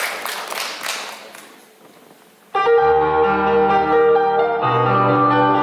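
Audience applause dying away, then about two and a half seconds in a piano-led song introduction starts abruptly at full level, a melody of held notes over a bass line.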